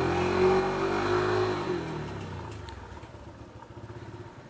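Motorcycle engine revving: the pitch climbs briefly, then falls away about two seconds in as the throttle is eased off, and the engine settles to a lower, quieter run while rolling slowly.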